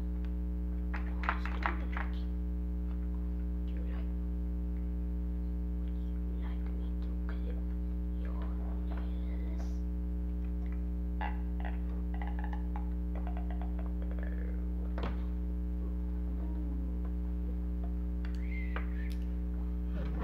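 A steady low electrical hum made of several held tones, with a few small clicks and handling sounds from work on the toy's electronics.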